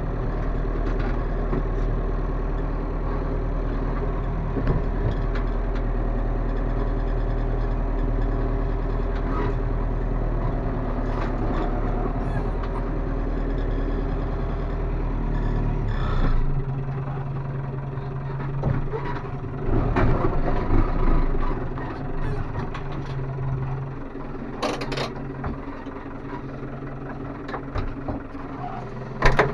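New Holland tractor's diesel engine running, heard from inside the cab. About halfway through its note drops and settles to a lower, quieter steady note, with a few short sharp clicks later on.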